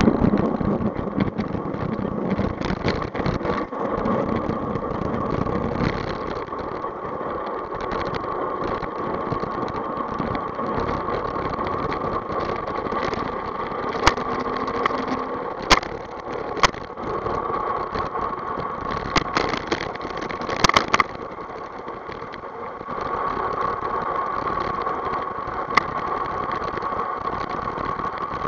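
Gravity bike coasting fast down an asphalt road: continuous tyre and wind rush with a steady whine, the bike and camera rattling, and a few sharp knocks from bumps in the middle.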